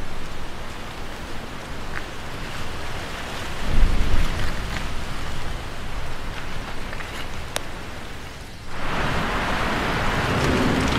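Rain falling steadily on garden foliage, an even hiss, with a brief low rumble about four seconds in. Near the end the rain hiss abruptly becomes louder and brighter.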